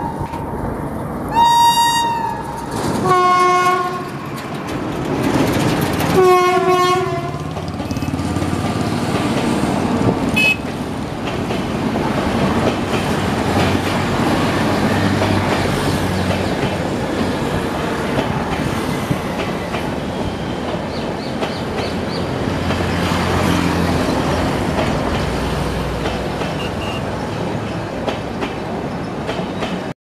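WAP-5 electric locomotive horn sounding in a shrill, cuckoo-like pattern: one short high note, then two longer low notes a few seconds apart. After that the passenger train's coaches run past with a steady rumble and the clickety-clack of wheels over rail joints.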